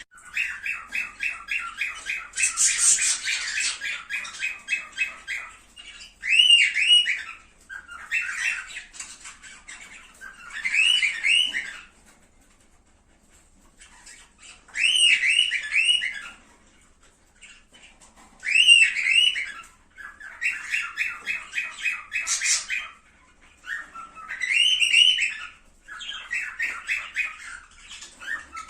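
Cockatiels calling: repeated short whistled phrases and fast runs of chirps at about four a second, with a brief pause near the middle.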